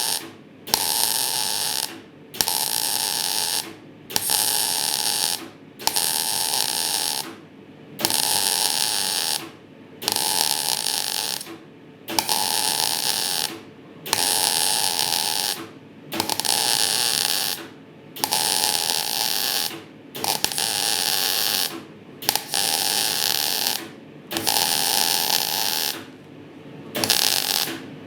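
MIG welding arc from a semi-automatic welder, 0.8 mm wire under an 80/20 argon–CO2 mix, on thin 1.5 mm steel tube. It buzzes in even bursts of about a second and a half, broken off for about half a second between each, roughly one every two seconds. This is stitch welding: the arc is broken so the thin metal can cool and not burn through across the wide gap.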